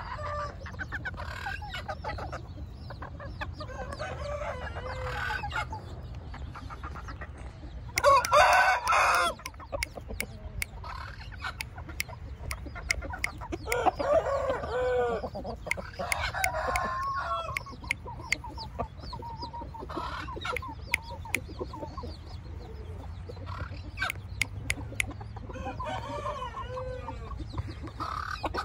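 Young bantam roosters crowing several times, the loudest crow about eight seconds in, with clucking and a few sharp clicks in between.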